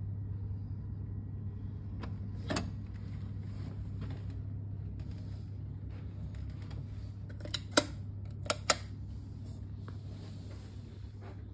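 Steady low hum in a small room, with a few sharp clicks and knocks: one a couple of seconds in and a quick cluster of three or four just past the middle.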